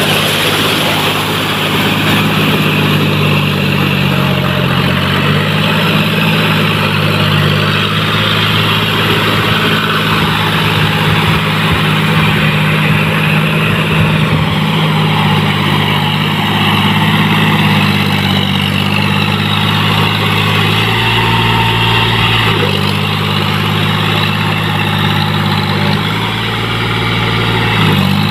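John Deere 5045D tractor's three-cylinder diesel engine running steadily as it pulls its cage wheels through a flooded, muddy paddy field. The engine note steps up and down a few times in the second half.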